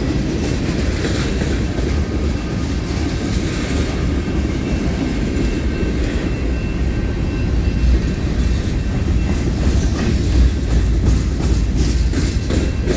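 Freight cars of a long CSX train rolling past at close range. Their steel wheels make a steady heavy rumble on the rails, with clicks over the rail joints that grow more frequent in the second half.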